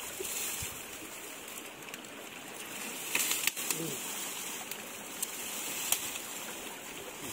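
Shallow river water running over stones, a steady rushing hiss, with a few sharp knocks and light splashes as people wade and work in the water.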